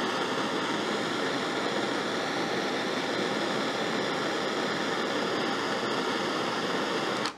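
Handheld Mag-Torch gas torch burning with a steady rushing hiss that cuts off suddenly at the end.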